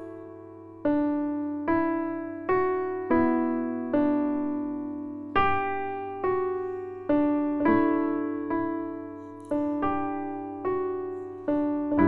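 Background music: a slow, gentle piano melody, one note about every second, each note struck and fading away.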